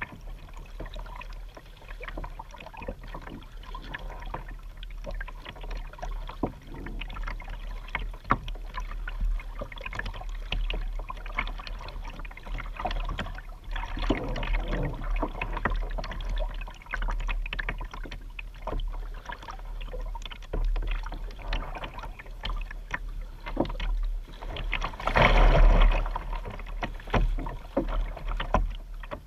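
Kayak paddling: a double-bladed paddle dipping and splashing on alternate sides of a Vibe Yellowfin 100 sit-on-top kayak, water lapping and dripping against the plastic hull in irregular small splashes over a steady low rumble. A louder rush of noise lasts about a second and a half near the end.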